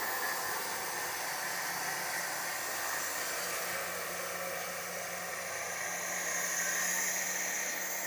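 Altai 900 band sawmill running: a steady whirring hiss with a faint low hum underneath.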